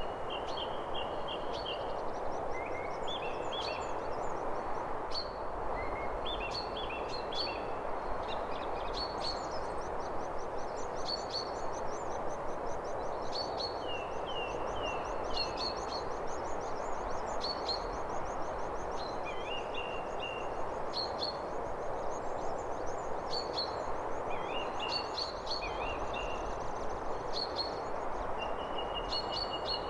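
Birdsong: several small birds chirping and trilling throughout, with a high thin trill running through the middle, over a steady even hiss.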